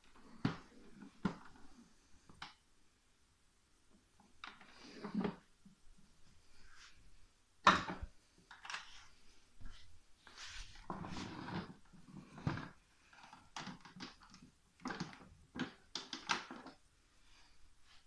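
Handling noise of a Toshiba VC-222 canister vacuum cleaner with its motor off: irregular plastic knocks, clicks and rustles as it is lifted by its handle and moved about, the sharpest knock about eight seconds in.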